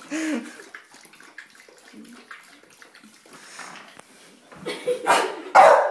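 Cat lapping at a gravity pet waterer, water splashing and gurgling with small clicking laps, louder and more splashy near the end.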